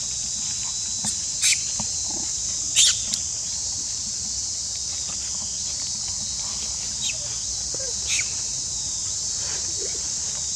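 A steady high insect drone, with four short, high squeaks that fall quickly in pitch, the loudest about three seconds in.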